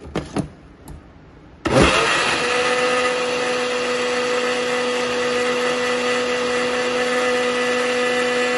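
Countertop electric blender: a few clicks, then about two seconds in the motor starts, winds up quickly and runs steadily at a constant speed, blending a runny orange cake batter.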